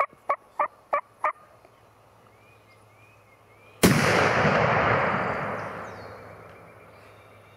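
A run of five short turkey yelps, about three a second, followed about four seconds in by a single sudden shotgun blast that echoes and fades away over two to three seconds.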